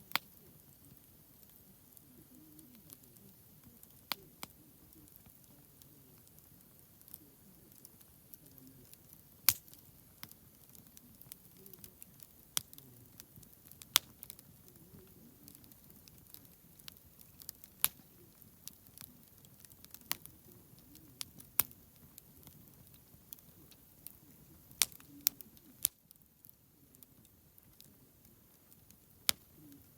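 Wood campfire crackling: irregular sharp pops and snaps, about a dozen loud ones, over a faint low rustle of burning.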